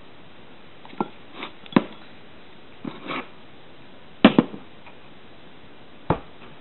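Handling noises from hands working at a table with fruit and a bowl: a few sharp knocks and taps with short rustles between them. The loudest is a quick double knock about four seconds in.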